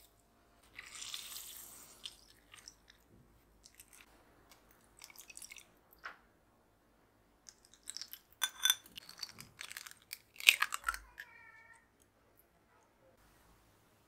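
Small kitchen handling sounds: a lemon squeezed by hand over a ceramic bowl with a soft wet hiss about a second in, then, after scattered small clicks, a cluster of clicks and clinks as lemon juice is poured through a wire-mesh strainer into a stainless steel bowl. The strainer gives a brief metallic ring about three quarters of the way through.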